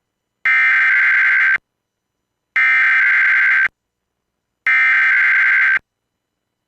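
Emergency Alert System SAME header data bursts: three identical screechy digital bursts of about a second each, a second apart, the coded header that opens an EAS alert.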